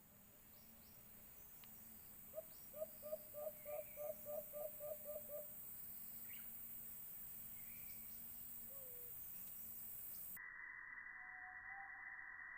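A dove calls a quick series of about ten short rising hoots, typical of the white-eared brown dove, over faint chirps from other birds. Near the end, an added wavering, siren-like sound effect cuts in.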